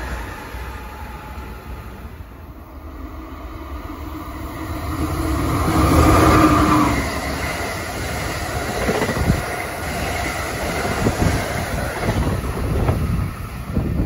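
Amtrak passenger train passing at speed on electrified track, its wheels clicking over the rails. The noise swells to its loudest about six seconds in.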